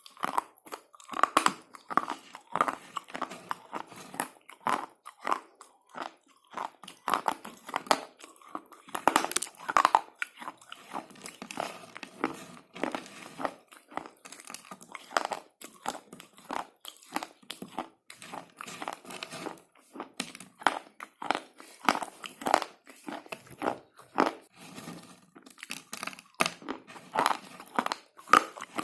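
Slate pencils being bitten and chewed close to the microphone: dense, irregular sharp crunches one after another.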